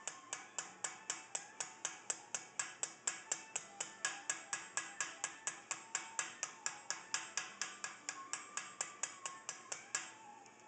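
Light hammer taps on sheet steel, evenly paced at about four or five a second, as a blacksmith works a steel acanthus leaf held in a vise in repoussé.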